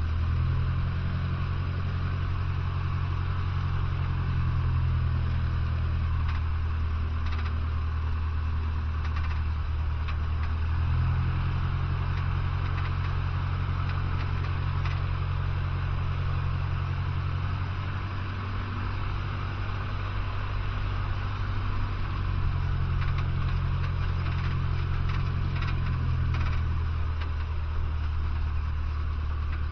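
A Cessna 150's four-cylinder Continental O-200 engine and propeller run at low taxi power, heard from inside the cabin as a steady, deep drone. Its pitch steps slightly up or down a few times as the throttle is adjusted.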